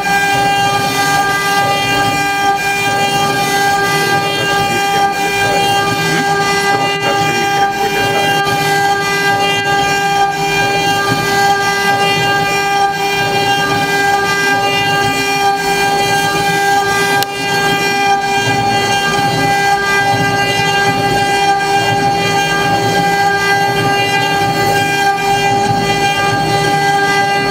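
Twitte CNC-1325 milling router at work: the spindle whines at a constant high pitch while its end mill cuts a groove through a wooden board at a 6000 mm/min feed, with the rough noise of the cut underneath.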